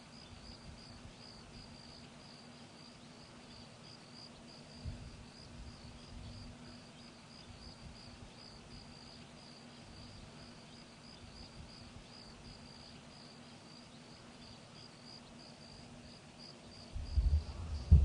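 Crickets chirping in a steady, rapid, even pulse, over a faint low hum, with a short burst of low rumbling near the end.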